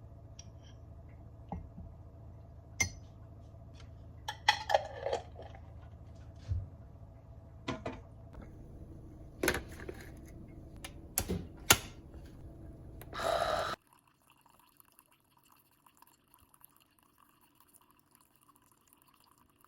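Kitchen sounds of coffee being made: a steady low machine hum with scattered clinks of mug, spoon and dishes, and a short rushing, pouring sound about thirteen seconds in. The sound then cuts off abruptly to near silence.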